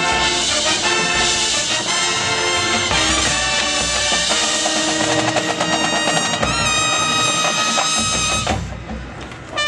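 Drum and bugle corps playing: a brass line of trumpets and lower horns over a marching percussion section. The music breaks off briefly near the end before the horns come back in.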